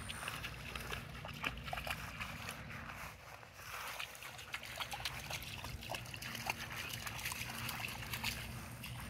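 A dog wading in shallow water, its paws splashing and sloshing, with scattered small drips and splashes over a low steady rumble.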